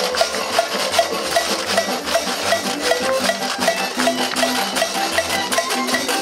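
Old-time string band music with fiddle, banjo and guitar, a crowd scraping washboards along with it, and a steady percussive tick about twice a second.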